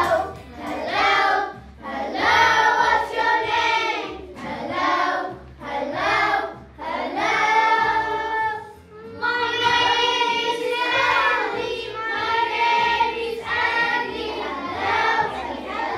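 A group of children singing a song together in short phrases.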